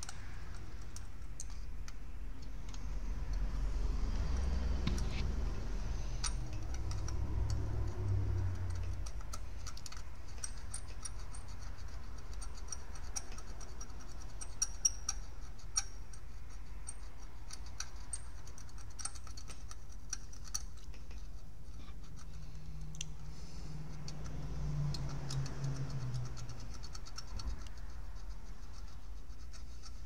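Scattered faint clicks and ticks of a probe and small tools being handled on a circuit board, with a low rumble a few seconds in and again near the end.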